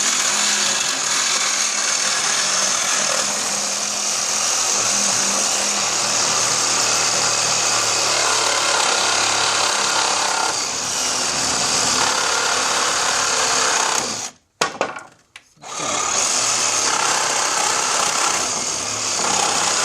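Reciprocating saw cutting through the nails between pallet boards, its blade chattering steadily. It stops for about a second partway through, then cuts on.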